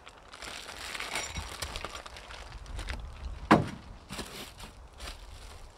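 Parts and packaging being handled in a cardboard box: light rustling of a plastic hardware bag, then one sharp knock about three and a half seconds in, followed by a couple of small clicks.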